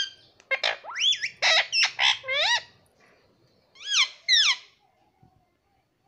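Indian ringneck parrot calling: a quick run of loud swooping pitched calls lasting about two seconds, then two falling calls about four seconds in.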